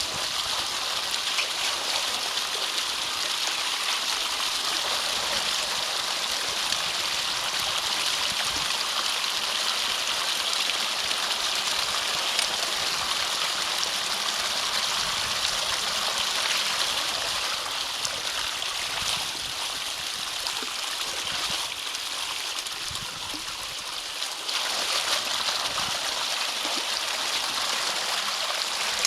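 Water running and gurgling steadily through a drainage ditch culvert that has been blocked by a beaver dam. It eases a little for a few seconds about three-quarters of the way through, then picks up again.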